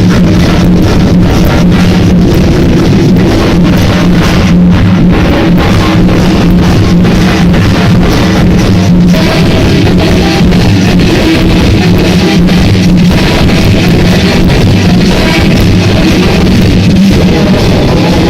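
Loud music with guitar and drums played over a sonidero sound system, with a steady beat and heavy bass.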